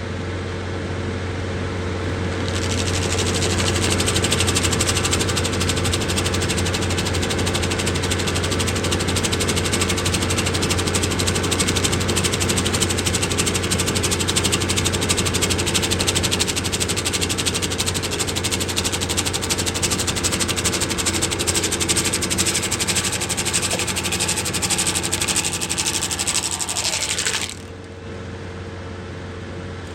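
Skid steer's diesel engine running steadily while its Eterra Vortex stump grinder attachment grinds an apple stump: a loud, dense chattering grind starts about two seconds in and stops suddenly near the end with a falling whine as the cutter wheel spins down, leaving the engine running.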